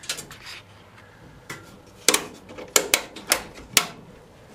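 A run of sharp clicks and knocks, about seven, most of them bunched between two and four seconds in, from hands working fittings in a vehicle cab.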